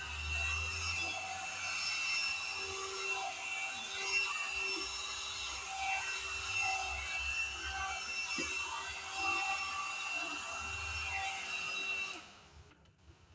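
Electric hot-air brush (hair dryer brush) running, its motor blowing air with a steady high whine. It is switched off shortly before the end, and the sound cuts off abruptly.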